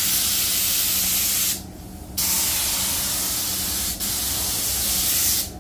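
Compressed-air paint spray gun hissing as it sprays a clear coat tinted with blue candy. It sprays in two long passes, stopping for about half a second around a second and a half in, with a very brief break near the end.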